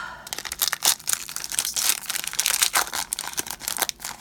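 Wrapper of a trading card pack being torn open and crinkled by hand: a dense, continuous run of sharp crackles.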